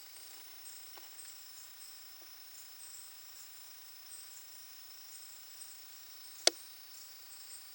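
Quiet night-time rainforest insects: a steady high-pitched drone with scattered higher chirps over it. A single sharp click stands out about six and a half seconds in.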